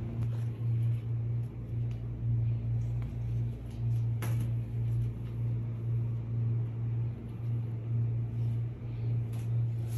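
A steady low hum that pulses slightly in level, with a single sharp click about four seconds in.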